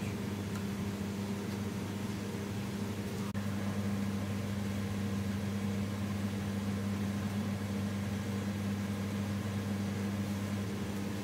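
Steady electrical hum of kitchen machinery with an even hiss behind it, and a single sharp click about three seconds in.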